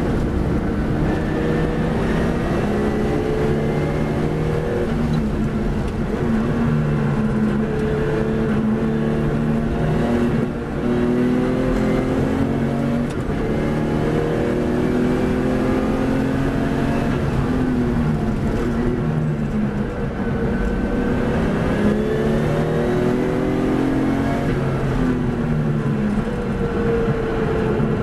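Racing car's engine heard from on board at full race pace. Its pitch climbs as it accelerates and drops back at each gear change, over a constant hum of rushing noise.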